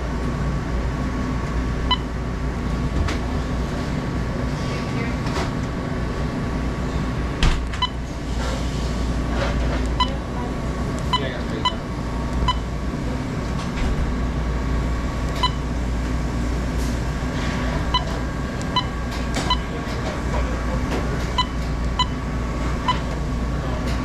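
Frymaster 3000 fryer controller beeping: many short electronic beeps at irregular intervals, one with each key press as time and temperature are entered, over a steady low hum.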